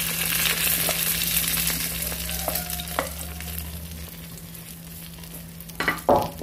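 Egg-and-vegetable omelette mixture sizzling in melted butter as it is poured into a hot frying pan, with a wooden spoon scraping out the bowl. The sizzle gradually dies down, and there is a short louder noise near the end.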